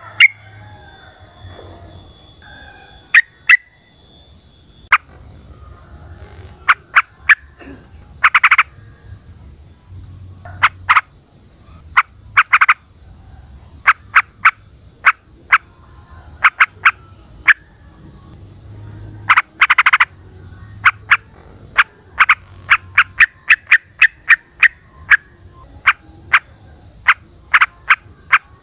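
Yellow-vented bulbul calling: loud, short, sharp notes repeated irregularly, with a few quick runs of notes about 8, 12 and 20 seconds in. Behind it a steady chorus of frogs or insects keeps up a pulsed, high-pitched trilling.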